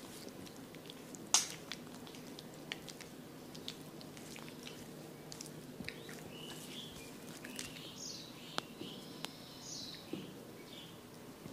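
Hands working oiled skin in a massage: soft wet clicks and pats over a steady low hum, with one sharp loud click about a second in. Birds chirp in the background during the second half.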